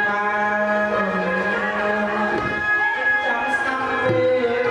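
Khmer wedding music (phleng kar): held instrument tones under a melody line that slides in pitch.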